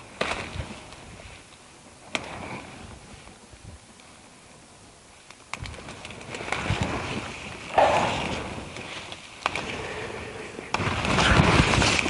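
Grass and reed leaves rustling and brushing against the camera as it is moved through dense vegetation, with handling knocks and clicks. Fairly quiet at first, then from about halfway in a run of irregular rustling bursts.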